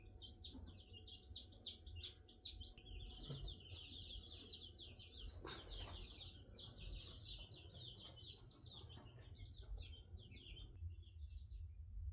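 Faint birdsong: a fast, continuous run of quick repeated chirps that thins to a few scattered notes near the end, over a low steady rumble.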